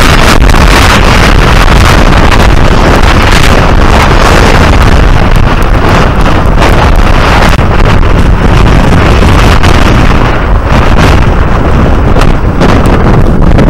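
Strong storm wind buffeting the microphone, loud and continuous, over heavy surf breaking on a rocky shore. The hiss thins slightly in the last few seconds.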